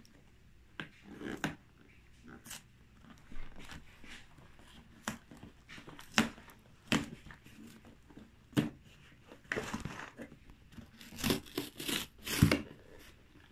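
Hands handling a cardboard LEGO box: scattered taps, scrapes and rustles of fingers and cardboard, with a busier run of rustling near the end.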